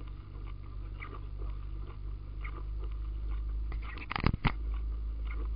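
Fiat 126p's two-cylinder air-cooled engine running steadily, heard from inside the car, with the windscreen wiper sweeping about every second and a half. A few sharp knocks come about four seconds in.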